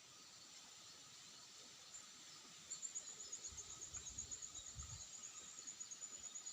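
Faint outdoor ambience of insects: a high, thin steady trill that turns into a fast pulsing chirr about three seconds in. A few soft low thumps come near the middle.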